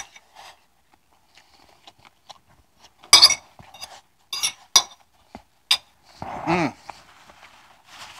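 Metal fork clinking and scraping on a dinner plate while eating, a few sharp separate clinks, the loudest about three seconds in. A short voice-like sound comes about six and a half seconds in.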